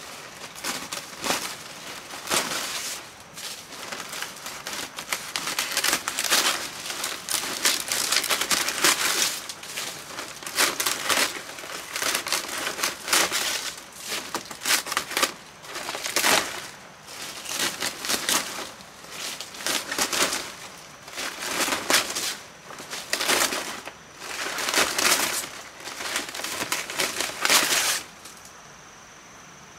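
Dry palm-leaf thatch rustling and crackling as it is handled and pulled at the roof edge, in repeated irregular bursts that stop shortly before the end.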